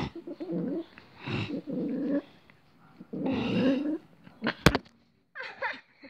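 Small long-haired dog growling in three short bouts, annoyed at being pestered and handled. A sharp click comes after the last growl.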